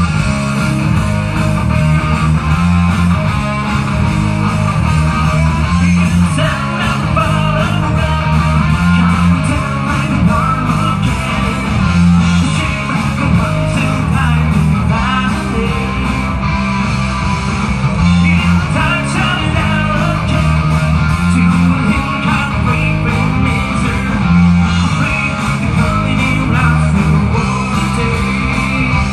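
Live rock band playing amplified, led by electric guitar and bass, with a repeating bass line.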